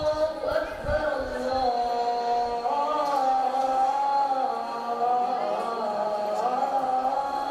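A boy's voice chanting the azaan, the Islamic call to prayer, in one long drawn-out melodic phrase whose pitch wavers and climbs.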